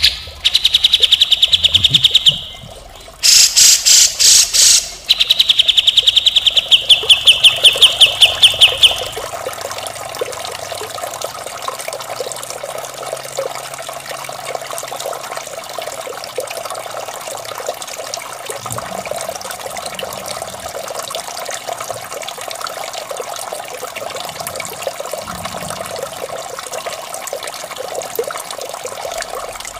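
A cucak jenggot bulbul sings rapid, harsh repeated trills for the first nine seconds or so, with a burst of rougher, buzzier chatter about three seconds in. It then stops, and a steady trickle of running water carries on alone.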